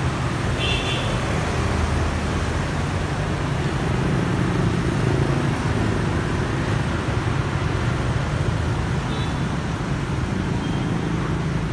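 Steady street traffic, mainly motorbikes passing, a continuous low rumble.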